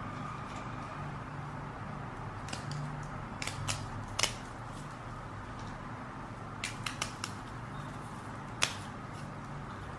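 Scattered light clicks and taps of decorations being handled, a few close together in the middle and a sharper one about four seconds in, over a steady low room hum.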